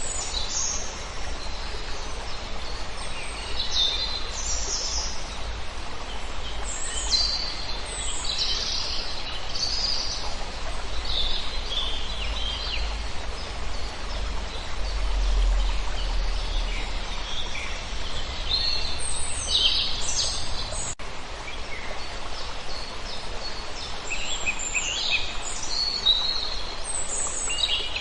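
Several small songbirds chirping and warbling in short high phrases over a steady rush of flowing water.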